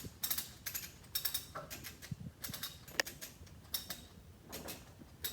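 A series of irregular light mechanical clicks and ticks, spaced unevenly with quiet between them; the sharpest is about three seconds in.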